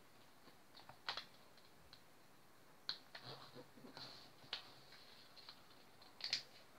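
Faint rustling and short crinkles of origami paper being folded and creased by hand against a wooden table, a handful of separate sharp ones about every second and a half.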